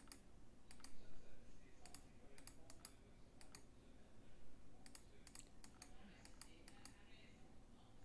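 Faint, irregular clicking of a computer mouse and keyboard, some clicks coming in quick pairs.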